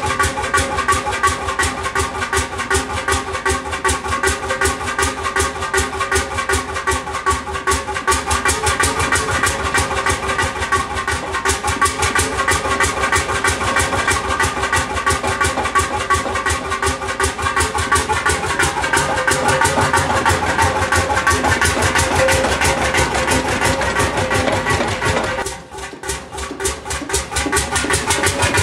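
A large engine running steadily, its firing beats in a fast, even rhythm over a steady whine. Near the end the sound drops out for a moment and picks up again.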